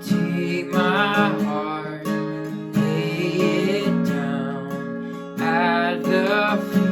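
Acoustic guitar strummed steadily under a voice singing a slow worship song, in three sung phrases with guitar-only gaps between them.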